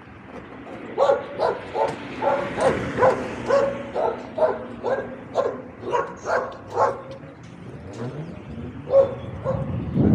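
A dog barking repeatedly, a quick run of short barks for about six seconds, then two more near the end.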